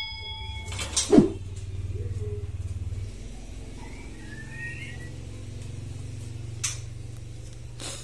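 A short, loud animal call falling steeply in pitch about a second in, then faint high bird chirps around the middle, over a steady low hum.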